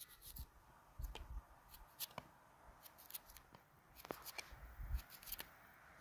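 Knife slicing through a hand-held cucumber: a series of faint, crisp cuts at an irregular pace, about one every half second to a second.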